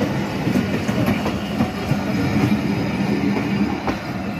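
Passenger coaches of a departing express train rolling past close by, their steel wheels rumbling steadily, with irregular clacks over the rail joints.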